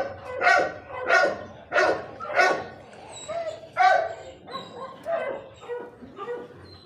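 A dog barking repeatedly: quick barks about every half second at first, then fewer and weaker ones toward the end.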